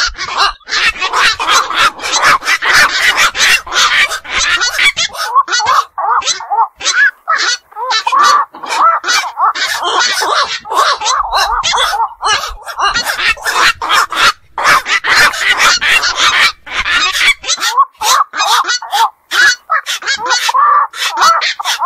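Black-crowned night heron calls: a loud, dense stream of short calls, several a second, with only brief gaps.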